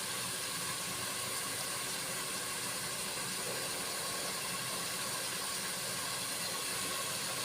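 Steady sizzling hiss of tomatoes and onions frying in a pan with salt.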